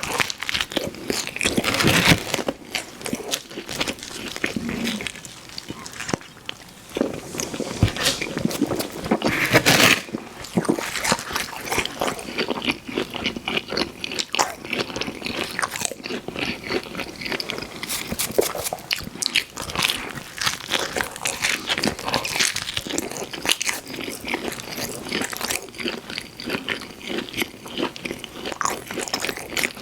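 Pizza being bitten and chewed close to the microphone: continuous wet mouth sounds and crunching, with louder bites about two seconds and ten seconds in.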